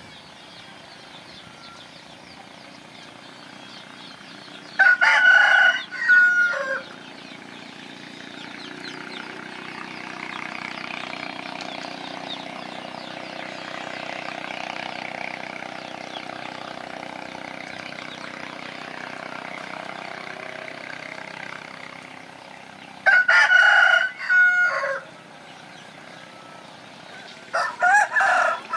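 Rooster crowing three times, each crow a loud pitched call of about two seconds. Between the crows a fainter drone swells and fades.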